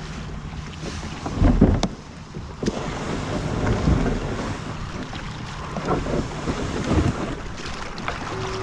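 Wind buffeting the microphone over the wash of ocean surf, with a strong gust about a second and a half in.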